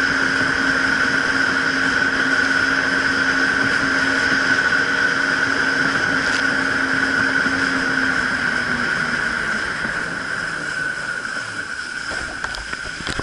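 Jet ski engine running at speed with water rushing past the hull; near the end the engine eases off and the sound drops slightly.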